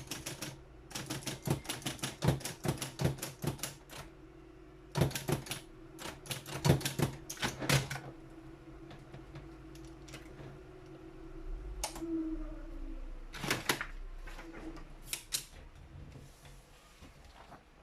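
Triumph Adler 131D electric typewriter typing in quick runs of sharp keystrokes over the steady hum of its running motor. The hum stops with a short falling tone, and a few single clacks follow.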